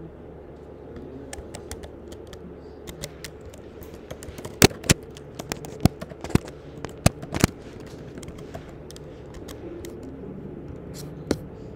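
Typing on a computer keyboard: irregular key clicks, with a quick run of louder keystrokes in the middle.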